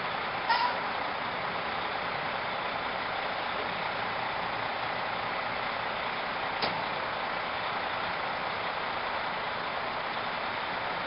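Fire department ladder truck idling, a steady engine noise, with a brief high chirp about half a second in and a single click near the middle.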